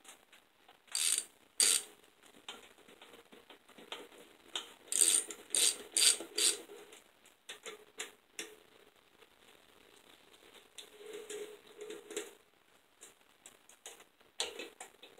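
Hand ratchet wrench clicking in short bursts of strokes as intake manifold bolts are snugged down, the busiest run about five to six and a half seconds in.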